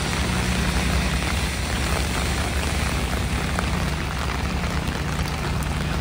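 A steady, low engine drone under an even hiss of falling rain.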